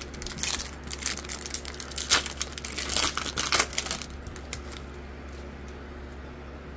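Foil wrapper of a Bowman Chrome baseball card pack crinkling and crackling as it is torn open and the cards are slid out, a rapid run of sharp crackles that stops about five seconds in.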